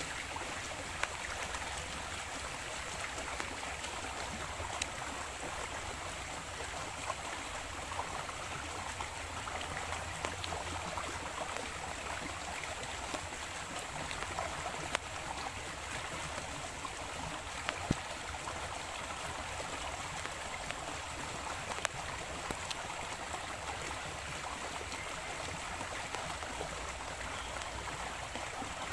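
Steady flow of a small stream, with an occasional faint click.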